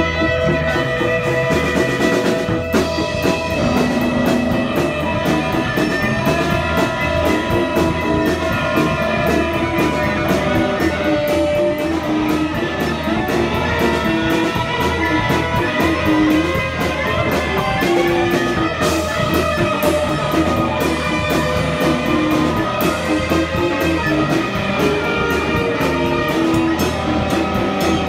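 Live punk rock band playing an instrumental passage: guitars and bass over a drum kit with a steady cymbal beat.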